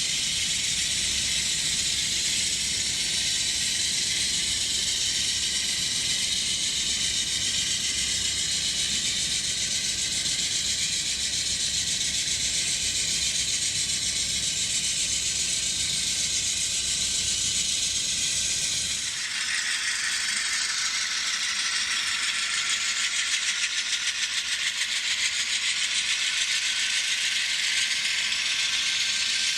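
N scale GE Dash 9-44CW model diesel locomotives running together as a unit on model track: a steady rattle and hiss of wheels and small motors, with a faint whine that drifts in pitch. About two-thirds of the way through, the deeper part of the sound drops away, leaving a higher hiss and a slowly rising whine.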